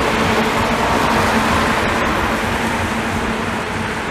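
Steady running noise of a road vehicle moving on a wet street: a low engine drone with a steady hum and the hiss of tyres on wet road, slowly getting quieter near the end.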